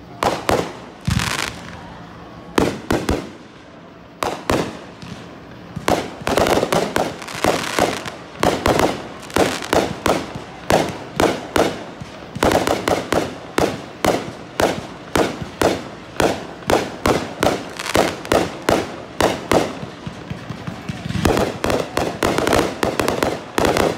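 Fireworks bursting: a few separate bangs at first, then about six seconds in a rapid barrage of about two loud bangs a second, with stretches of crackling among them.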